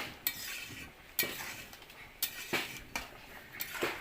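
Metal spoon stirring food in a metal cooking pot, knocking and scraping against the pot several times at uneven intervals.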